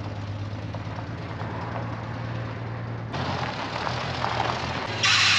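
Jeep J-10's swapped-in Ford 300 cubic-inch inline-six running with a steady low hum as the truck moves about the yard. The sound fills out about three seconds in, and a loud harsh noise starts near the end.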